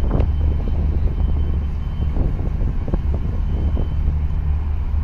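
Steady low diesel drone of a fishing boat and a tugboat under way in the harbour channel, with wind on the microphone.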